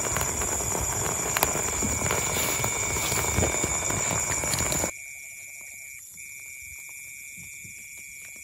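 Night insects, crickets by the sound of it, trilling steadily in high continuous tones. A loud rough, crackly noise lies over them for the first five seconds and cuts off abruptly, leaving the insect trill alone.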